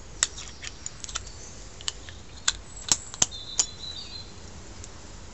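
A dozen or so small, sharp clicks and taps at irregular intervals as the metal Gunson Colortune spark plug is handled, ready to be fitted into the cylinder head of an engine that is not running.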